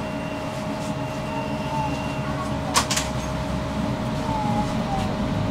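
Tram's steady low rumble with a steady electric hum, and two sharp knocks close together about three seconds in.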